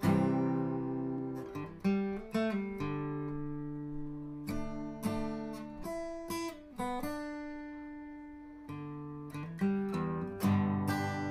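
Acoustic guitar music: strummed chords struck every second or so, each left ringing and fading.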